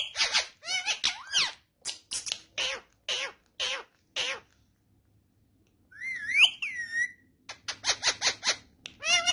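Ringneck parrot calls: a quick run of short, pitch-gliding notes, a pause about halfway, then a rising whistle and another quick run of notes.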